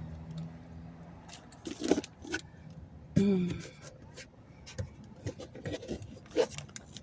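Scattered clicks, taps and scraping as a clamped-in dashboard panel on a 2015 Ford F-150 is worked by hand to get at the cabin air filter, its screws already out.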